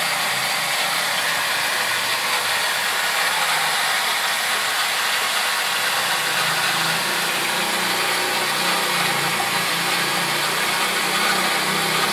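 Steady running noise of a small electric machine: an even, loud hiss with a low hum beneath it.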